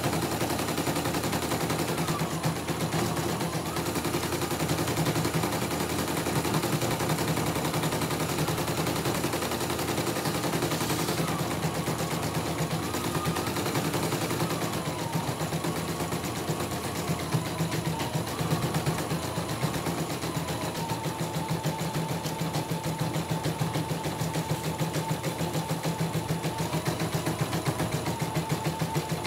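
CNY E900 embroidery machine stitching a design: a rapid, steady clatter of the needle running, under a high whine that wanders in pitch and then holds steady in the second half. The machine, which had been seized solid, runs smoothly on this test after repair.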